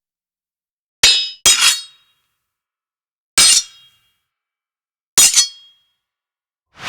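Sword clash sound effects: short metallic blade strikes, each with a brief ringing clang. There is a quick pair about a second in, a single strike midway, and a double strike near the end.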